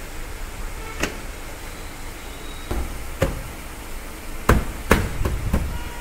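Hand knocks and thumps on a Hyundai i20's plastic door trim panel as it is pressed home onto the door: about seven separate knocks, closer together and louder in the second half.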